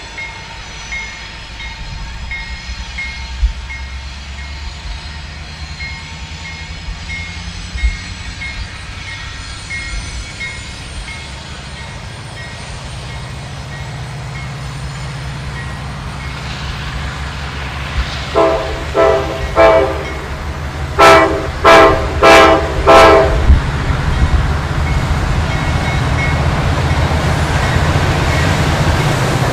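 Diesel engines of a GE C40-9W and an EMD SD70 locomotive running light, notching up to full power so the low rumble builds steadily through the second half. A locomotive air horn sounds four quick short toots, then four longer, louder blasts.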